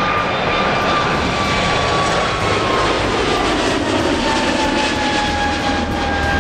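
Airbus A220 jet climbing away after takeoff, its Pratt & Whitney PW1500G geared turbofans running at high thrust: a steady jet roar with engine whines that slide down in pitch as the aircraft moves away.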